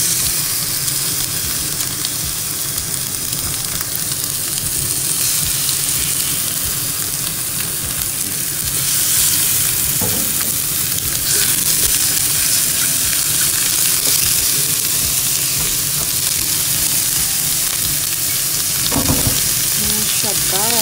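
Chicken thigh pieces sizzling steadily in a hot nonstick frying pan, frying in their own fat with no added oil. A couple of light clicks come from chopsticks against the pan as pieces are set in and moved.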